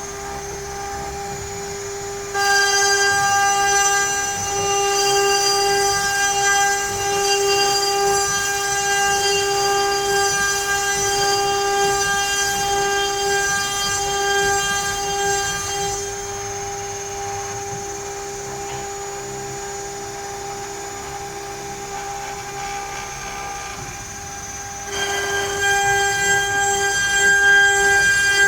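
CNC router spindle whining at a steady pitch while the bit cuts into pine. The cutting noise gets louder about two seconds in, eases off for several seconds past the middle, and rises again near the end.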